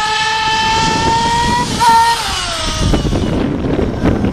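Nitro RC buggy's small glow-fuel engine running at high revs, its pitch climbing slowly, then falling away about two seconds in; a rougher, lower noise follows near the end.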